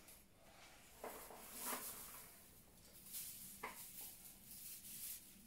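A few faint rustles and soft taps of reed stems being handled in a flower arrangement.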